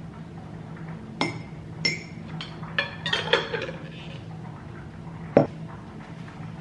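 Metal spoon clinking against a glass jar and a ceramic mug: two ringing taps about a second apart, then a quick run of clinks and clatter. Near the end comes a single heavier knock, the glass jar being set down on the countertop.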